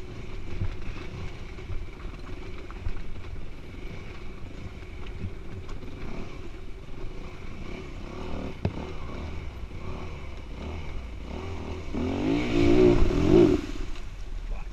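Yamaha WR250F's single-cylinder four-stroke engine running at low throttle on a rocky downhill trail, with scattered knocks and clatter of the bike over the rocks. About twelve seconds in it revs hard, rising and then falling, before dropping back.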